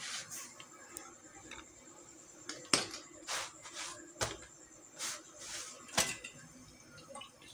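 Scattered light knocks and clatters of kitchen utensils as an iron tawa is handled on a gas stove during roti making, over a faint steady hum.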